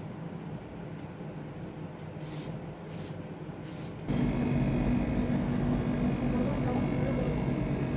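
A steady low machine hum with a few short hisses, then a louder motor hum with steady low tones starts suddenly about four seconds in.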